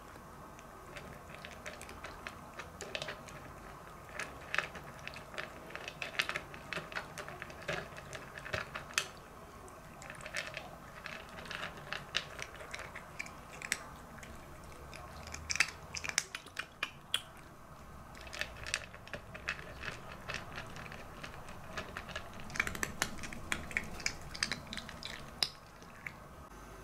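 A cat crunching dry kibble: irregular clusters of sharp crunches, with short pauses between mouthfuls.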